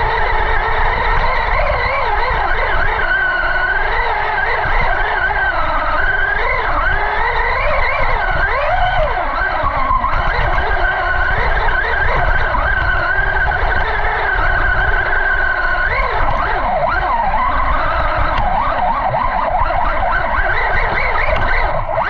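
Traxxas Rustler 4x4 VXL RC car's brushless electric motor whining as it drives, its pitch rising and falling with the throttle, heard from a GoPro mounted on the car, over a steady low rumble.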